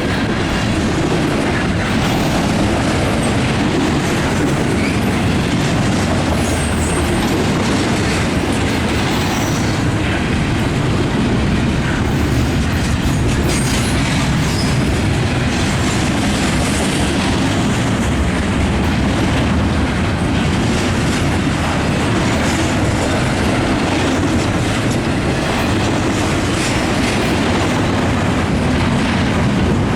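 Norfolk Southern freight train rolling steadily past, its cars' wheels clattering over the rail joints, with now and then a faint high wheel squeal.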